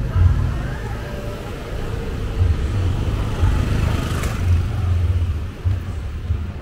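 Cars moving slowly through a narrow street and passing close by, a low engine rumble that swells and fades. A short sharp click about four seconds in.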